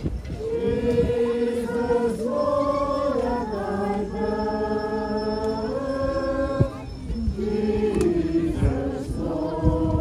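A group of voices singing a Christmas carol slowly, holding long notes that step up and down in pitch, with a short break about two-thirds of the way through.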